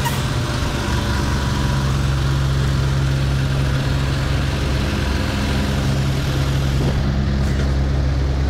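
Semi-truck diesel engine running at a steady idle.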